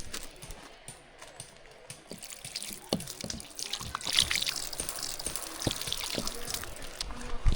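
Liquid pouring and trickling, starting about two seconds in and running for several seconds, with a few light knocks.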